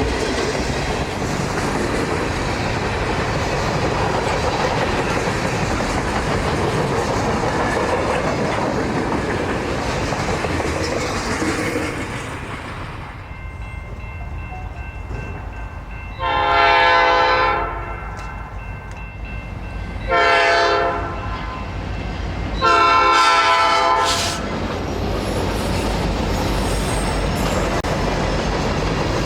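Freight train rolling by, with steel wheels clattering over the rails, for about the first twelve seconds. After a quieter moment, an EMD diesel locomotive's multi-chime air horn sounds three blasts, long, short, long, and the rolling train noise picks up again near the end.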